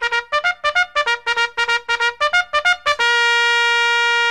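Intro music: a brass tune of quick, short notes that ends on one long held note about three seconds in.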